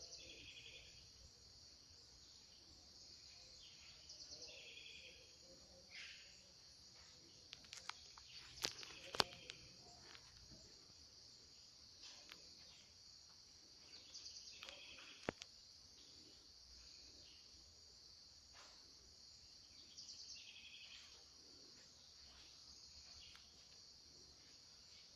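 A steady, high-pitched, faint chorus of crickets or similar insects. A few sharp clicks stand out over it, two close together about a third of the way in and one more a little past the middle.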